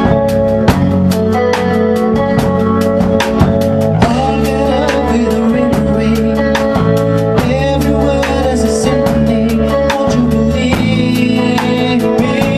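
A live rock band playing: a drum kit keeps a steady beat under electric guitar and bass guitar, with a male voice singing.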